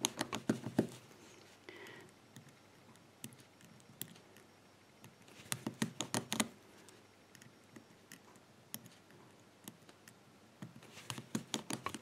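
Number wheels of a TESA four-wheel combination padlock clicking as they are turned, stepping each wheel to try a new combination. The clicks come in three short rapid runs, near the start, in the middle and near the end, with a few single ticks between.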